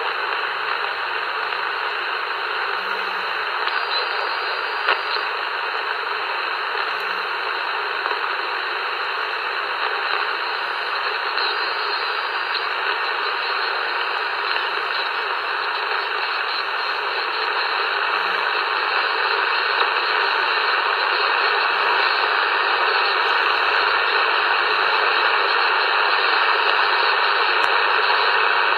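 President Jackson CB transceiver hissing with steady receiver static through its speaker, squelch open and no voice coming through. The hiss grows a little louder past the middle.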